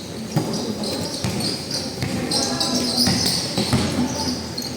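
Basketball game on a court: the ball bouncing in repeated knocks, over the chatter of players and onlookers.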